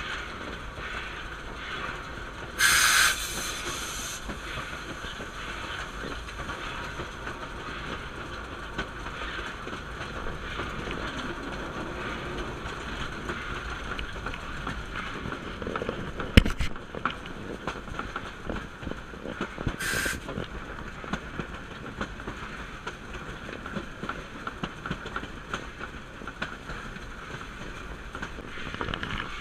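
Puffing Billy's narrow-gauge steam locomotive 14A running, heard from its cab: a steady rumble of wheels with the click of rail joints. A loud burst of steam hiss comes about three seconds in and lasts over a second, and a shorter hiss comes near twenty seconds. A single sharp knock sounds a little past halfway.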